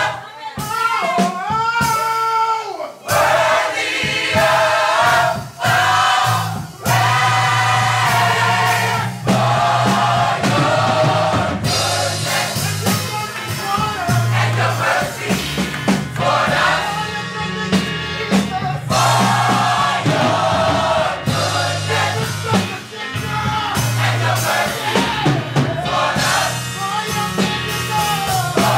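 Gospel mass choir singing over instrumental accompaniment, with a sustained bass line underneath.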